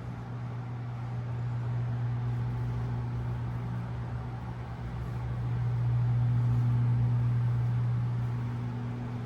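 A steady low mechanical hum that swells louder about six seconds in and then eases off.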